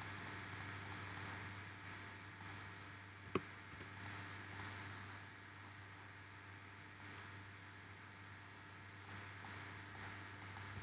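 Computer mouse clicking: single sharp clicks at irregular intervals, several in the first few seconds, a pause of a few seconds, then a few more near the end, over a faint steady low hum.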